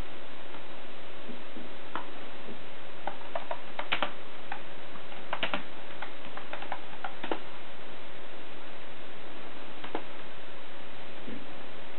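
Keystrokes on a computer keyboard typing a search query: irregular clicks, with a quick run of taps between about three and seven seconds in, over a steady hiss.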